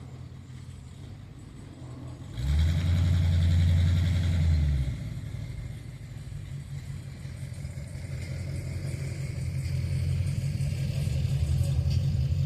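Boeing 737 MAX 8 jet engines (CFM LEAP-1B) running with a low rumble. The rumble jumps suddenly in level about two seconds in, drops back after about two and a half seconds, then builds slowly.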